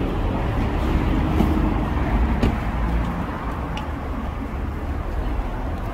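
Urban street ambience: a steady low rumble of road traffic with a general hiss of the street, and a couple of faint clicks partway through.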